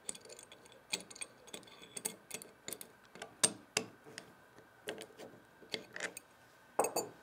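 Adjustable wrench clicking and clinking against the steel mandrel of a roller burnishing tool as it is turned and reset in short strokes to unscrew the mandrel from the shank. The metallic clicks come at an uneven pace, the loudest about three and a half seconds in and a quick double clink near the end.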